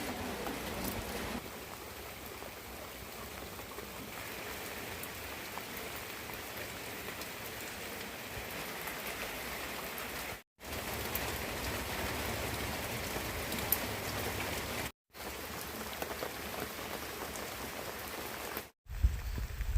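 Steady rain falling and pattering on surfaces, a continuous even hiss; the sound drops out abruptly for a moment three times.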